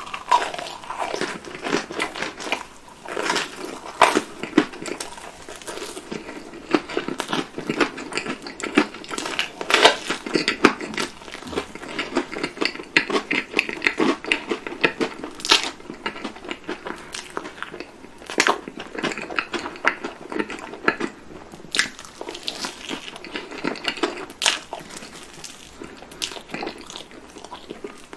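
Close-miked eating sounds: repeated bites and crunchy, crackling chewing of sweets, typical of the chocolate coating on ice cream bars breaking.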